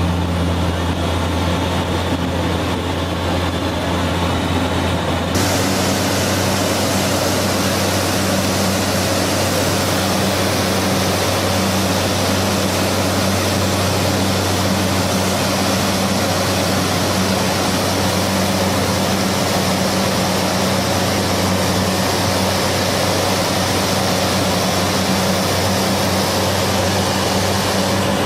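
A motor running steadily, its low drone carried under a constant rushing noise; the hiss turns brighter suddenly about five seconds in.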